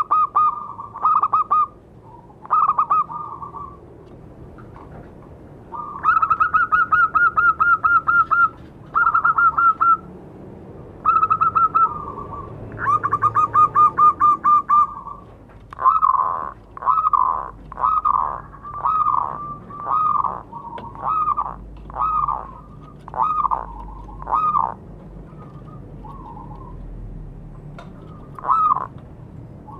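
Zebra dove (perkutut) cooing. The first half holds short phrases of fast staccato notes. From about halfway it turns into a long run of separate falling coos, a little more than one a second.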